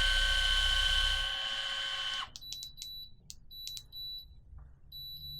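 Minn Kota Ulterra trolling motor's built-in electric drive whining steadily, cutting off about two seconds in, followed by clicks and short, high electronic beeps, which become a regular beeping near the end.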